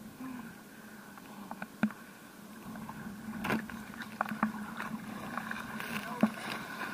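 Small sea waves lapping and slapping against a camera held at the water's surface, with a few sharper splashes, over the faint steady hum of a motorboat engine.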